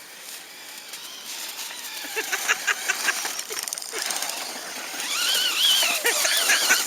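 Arrma Granite BLX RC monster truck driving on loose snow: its brushless electric motor whines, the pitch wavering up and down quickly with the throttle, and it grows louder over the last couple of seconds, over a rapid patter of clicks from the tyres.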